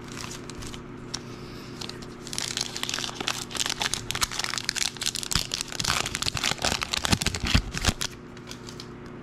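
A foil trading-card pack wrapper being torn open and crinkled by hand, a dense run of crackling from about two seconds in until near the end.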